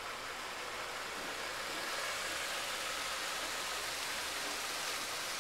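Steady, even outdoor hiss with no distinct events, a little louder from about two seconds in.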